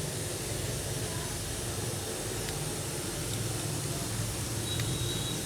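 Steady background noise: an even hiss with a low hum underneath, with no distinct event.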